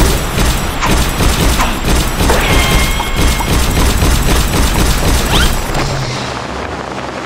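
Loud background music with heavy bass and repeated sharp hits, with booming effects mixed in.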